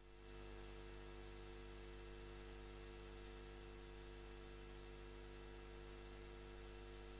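Steady electrical hum and hiss on the audio feed, with a thin high whine over it, fading in at the very start and then holding level.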